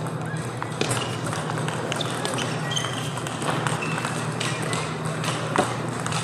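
Table tennis balls being hit and bouncing on tables in a large practice hall: short sharp clicks at uneven spacing, over a steady low hum.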